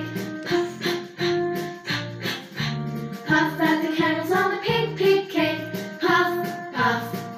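A children's phonics song: a child singing over music with a steady beat.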